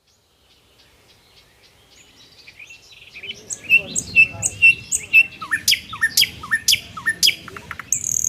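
Songbirds calling, fading in over the first few seconds: a run of short high chirps about two a second, then a series of sharp down-slurred calls at a similar pace, over a low background rush.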